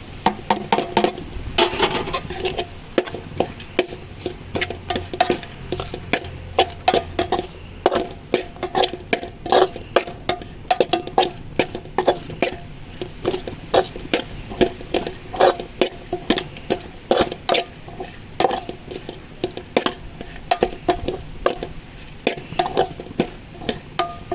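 Metal spoon stirring cooked greens in a kadai, clinking and scraping against the pan several times a second, each knock leaving a short metallic ring, as grated coconut is mixed in.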